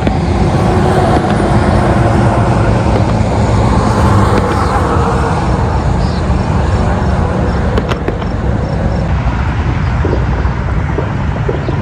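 Steady traffic noise from Interstate 80: a constant low hum of cars and trucks passing at highway speed.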